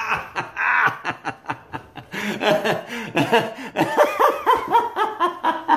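A man laughing hard: a few bursts at first, then from about two seconds in a rapid, even run of laughs at about four a second.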